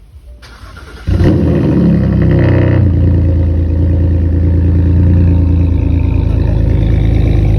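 An engine starts up about a second in, revs briefly, then settles into a steady, loud run.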